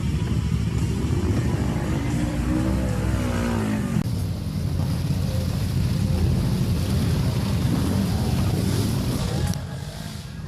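Off-road ATV and side-by-side engines running loudly and steadily, the level dropping briefly near the end.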